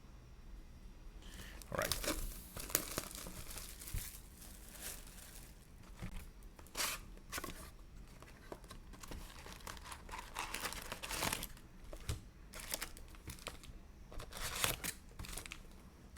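Plastic wrapping on a trading-card box and its packs being torn open and crinkled, in irregular bursts of crackling with short pauses between.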